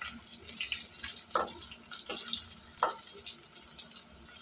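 Masala-coated cauliflower pieces deep-frying in hot oil in a kadai: a steady sizzle with scattered crackles, and a couple of louder pops.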